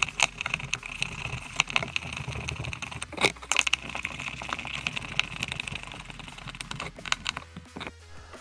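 Irregular light clicks and taps of hand tools and screws being worked while fastening a scooter top case to its rear rack, with one sharper click about three seconds in.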